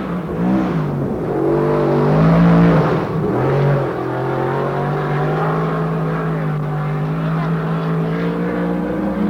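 Ford DOHC quad-cam V8 in a Champ dirt car. The engine pitch rises and falls over the first few seconds as it revs, then it runs at a steady pitch.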